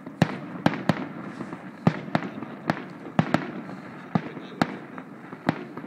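Fireworks display: about a dozen sharp bangs of aerial shells bursting at uneven intervals, some in quick pairs, over a steady background hiss.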